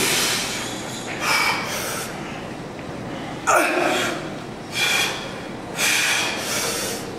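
A man breathing forcefully through a set of barbell back squats: five sharp hissing breaths about a second apart. The loudest, about three and a half seconds in, carries a short grunt that falls in pitch.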